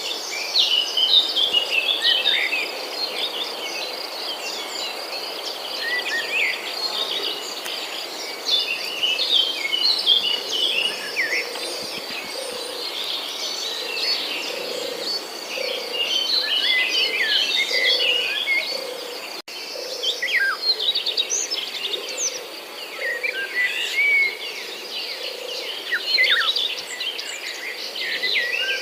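Many small birds chirping and twittering over a steady high-pitched insect trill, with a soft low note repeating about once a second.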